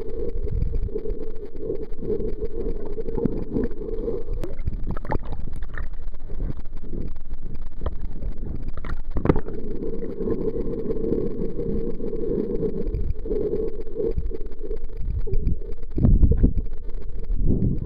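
Muffled rushing water and splashing around an action camera being swum through the sea. It dips under and breaks the surface, with sharper splashes in the middle.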